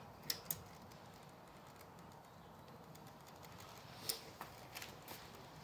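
A few short, sharp clicks and taps from hand work with a caulking gun and silicone cartridges while a bead of silicone is run: a quick pair just after the start, a louder click about four seconds in, then a few lighter ticks.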